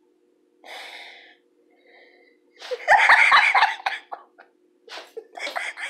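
A cat retching and gagging, as when bringing up a hairball: a breathy wheeze about half a second in, then a loud burst of hacking around the middle, followed by shorter gasping breaths.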